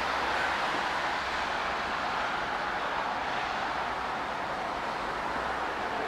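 Steady, even outdoor rushing noise with no single event standing out, over a low unsteady rumble.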